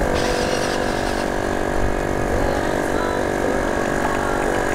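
Radio-controlled model aircraft engine running steadily, with a buzzing, many-toned drone that wavers a little in pitch in the second half.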